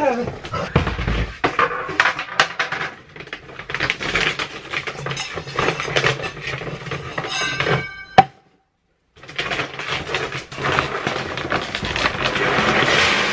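Large plastic bag of dry dog food crinkling and rustling as it is torn open and handled, with a drop to silence for under a second about eight seconds in.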